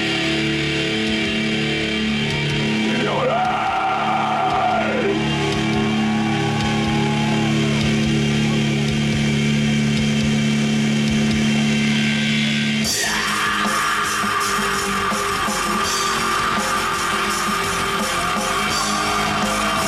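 Live rock band: held electric guitar and bass notes ring on under long sung vocal notes, then about thirteen seconds in the drums and full band come back in and play on.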